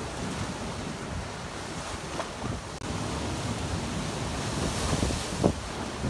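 Sea surf washing and breaking among shoreline boulders, with wind rumbling on the microphone and a brief thump about five and a half seconds in.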